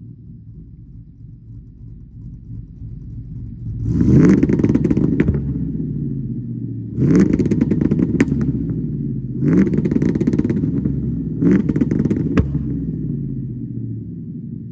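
Cammed 5.3-litre V8 of a 2006 GMC Sierra, breathing through long-tube headers and Cherry Bomb glasspack mufflers, idling, then revved four times a couple of seconds apart, the pitch rising and falling back with each rev. Sharp exhaust cracks sound as the revs drop after three of them.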